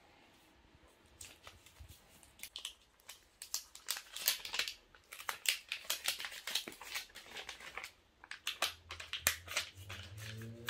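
Crinkling and crackling of packaging being handled and torn open while unboxing Apple AirPods Max, in quick irregular bursts that grow busier after about a second.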